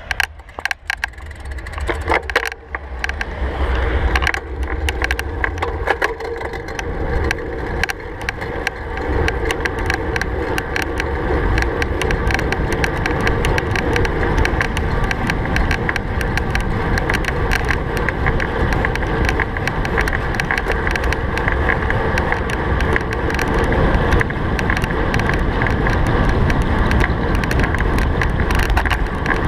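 Wind rushing over a handlebar-mounted action camera, with a road bike's tyres rumbling on rough asphalt and frequent small clicks and rattles. It builds over the first several seconds as the bike accelerates from a standstill to about 40 km/h, then stays steady.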